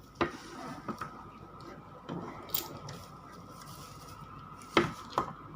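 Parts of a newly unboxed ring light being handled: about six separate sharp clicks and knocks of hard plastic and metal pieces, the loudest pair near the end.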